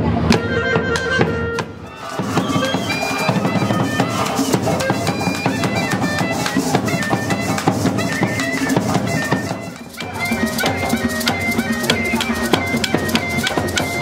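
Live Colombian folk band music: a clarinet playing the melody over a large wooden bass drum and maracas, in a steady dance rhythm.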